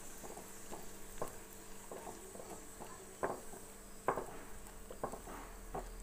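A spatula stirring onions simmering in pomegranate juice in a non-stick kadai, with irregular scrapes and knocks against the pan, a few louder knocks in the second half.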